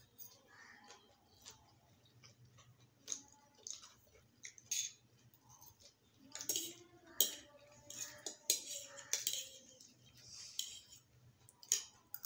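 Forks scraping and tapping on disposable paper plates as noodles are picked up and eaten, with scattered chewing sounds, over a low steady hum.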